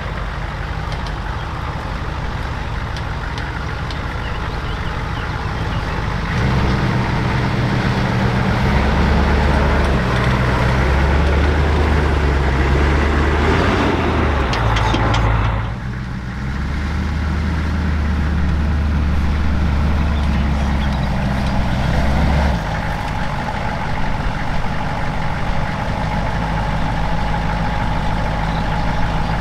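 HMMWV (Humvee) V8 diesel engine working under load as the truck drives off-road. It is heavier from about six seconds in, drops briefly near the middle, and is lighter again for the last several seconds. It is running nice and strong, its fuel system freshly cleaned of diesel-bug contamination.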